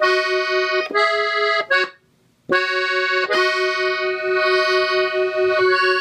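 Gabbanelli three-row button accordion, tuned in E, played slowly: a few short held notes and chords, a break of about half a second around two seconds in, then one long sustained note.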